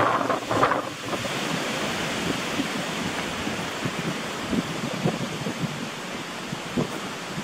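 Wind blowing across the microphone: a steady rushing hiss, choppier and heavier in about the first second, then settling.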